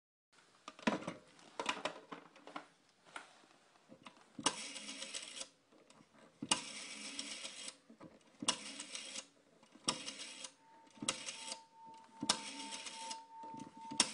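Repeated bursts of mechanical clattering and whirring, each starting with a sharp click and lasting about a second, roughly every one to two seconds. A steady tone joins in about ten seconds in.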